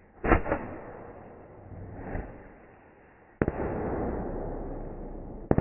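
Consumer fireworks going off: two sharp bangs just after the start, then another sharp bang about three and a half seconds in followed by about two seconds of steady hiss, and two more quick bangs at the very end.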